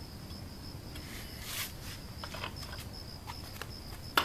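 Crickets chirping in a steady high trill, with scattered light clicks and one sharp click near the end.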